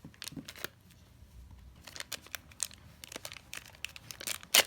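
Plastic toy packet crinkling and rustling as it is cut and torn open, a run of irregular short crackles with the loudest one near the end.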